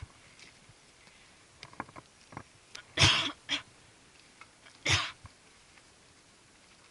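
Short, breathy puffs of a climber's hard breathing while scrambling up steep rock: two close together about three seconds in and one about five seconds in, with faint clicks and scuffs of shoes and hands on the rock between them.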